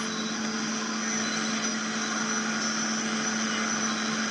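Steady hiss and static from a homebuilt SSB Semar 40-metre band receiver's loudspeaker as it is tuned up the band, with a steady low hum underneath.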